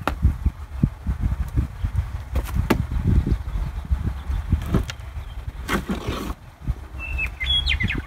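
Low, uneven rumbling with scattered knocks and clicks, and a bird chirping a few quick notes near the end.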